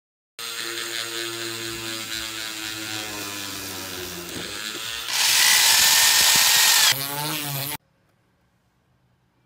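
Handheld rotary tool spinning a small drill bit and boring a hole through a thin wooden strip. The motor runs with a steady whine, a loud hiss of cutting comes in about five seconds in, and the sound cuts off abruptly near the end.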